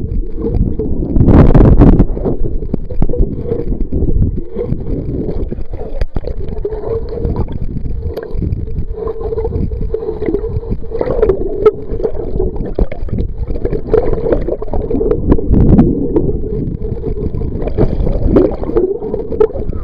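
Water sloshing and splashing close to the microphone, with a steady low rumble and irregular small knocks.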